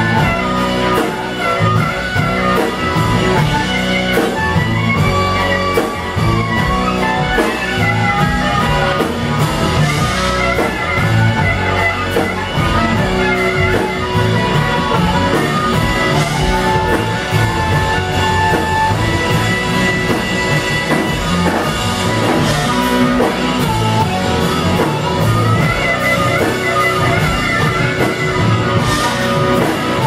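Live blues-rock band playing with drum kit, electric bass and baritone saxophone, with an amplified harmonica, cupped to a hand-held microphone, carrying the lead line.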